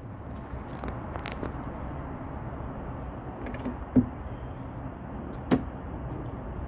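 A few sharp clicks and knocks, the loudest about four seconds in, as a hood lift gas strut is handled and fitted onto its upper mount, over steady low background noise.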